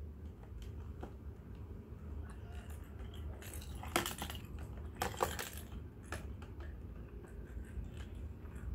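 A small ball clattering and rattling about in a plastic divided tray as cats paw at it: scattered light clicks, with two louder bouts of rattling about four and five seconds in.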